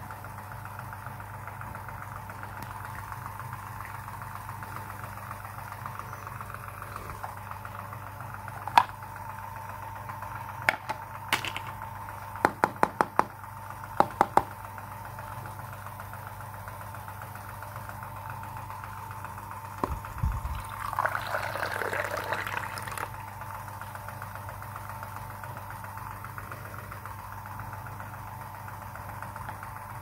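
Hard plastic toy pieces clicking and knocking as they are handled: single knocks, then a quick run of about five clicks and a few more, over a steady background hum. About two-thirds of the way through there are a couple of seconds of noisy rustling.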